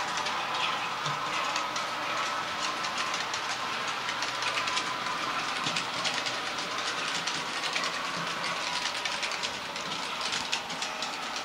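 Bachmann OO gauge model multiple unit running along the layout's track with no sound decoder, its wheels making a dense, rapid clicking over the rail joints and points, over a steady hum.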